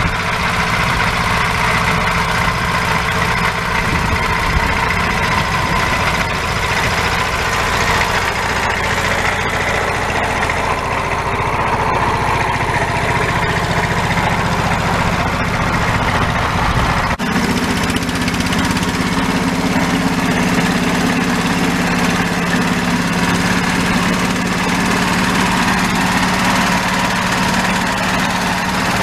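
1964 Deutz D15 tractor's single-cylinder air-cooled diesel engine running steadily under load while pulling a plough. The sound shifts abruptly a little past halfway, where its low tone becomes stronger and steadier.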